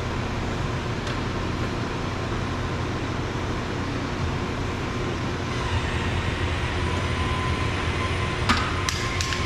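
Steady rumbling background noise while a T30 Torx screw is backed out of the door panel. A faint whine joins about halfway through, and a few sharp metallic clicks come near the end as the screw comes loose.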